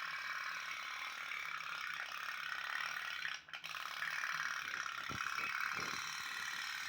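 Toy pop-pop steam boat running with a fast, steady rattling putter. The putter drops out briefly about halfway through, and a few dull knocks follow.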